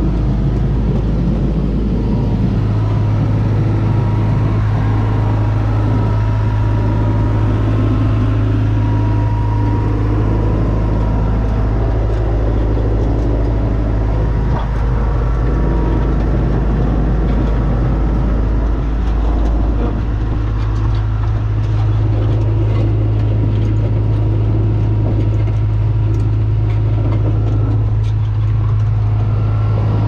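Diesel engine of an Ingersoll Rand Titan 3870 asphalt paver running steadily at an even speed, a constant low hum.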